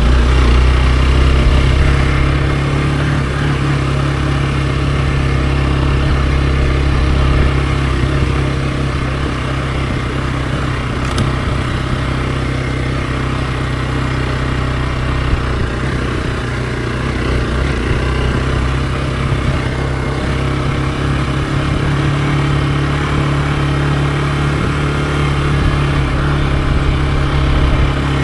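Hero XPulse 200 4V single-cylinder engine running steadily under way, with a small drop in engine note about two seconds in.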